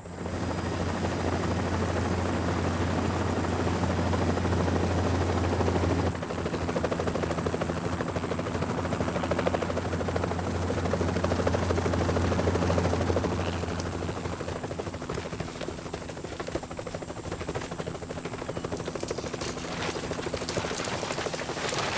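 Helicopter running with a steady low hum and rapid, even rotor chop; the sound changes abruptly about six seconds in and grows quieter from about fourteen seconds on.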